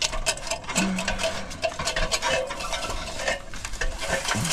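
Irregular scraping, knocking and rubbing as someone climbs down a tree stand ladder, with hands and boots on the rungs and clothing rubbing close to the microphone.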